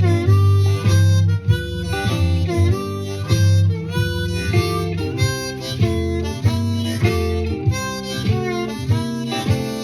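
Blues harmonica, a C diatonic played in second position in G, playing chord-tone accompaniment licks over a shuffle backing track with guitar and bass. Short, clearly separated notes change every fraction of a second.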